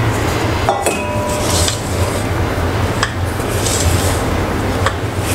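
Silicone spatula scraping and folding flour into thick cake batter in a stainless steel bowl, with a few light knocks against the bowl, over a steady low hum.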